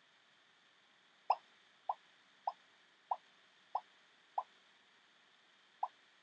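Short cartoon plop sound effect, heard seven times: six about every 0.6 s, then one more after a longer gap. Each plop marks a piece of fruit (six bananas, then a mango) popping onto a rock.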